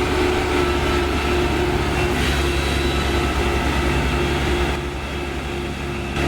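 Kubota DC-35 rice combine harvester's diesel engine running steadily: a low hum with steady tones above it, easing slightly quieter near the end.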